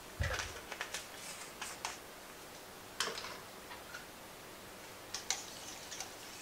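Scattered light clicks and taps of kitchen utensils being handled at the stove, with a soft thump about a quarter second in. Near the end a whisk starts knocking against the stainless steel stock pot as stirring begins.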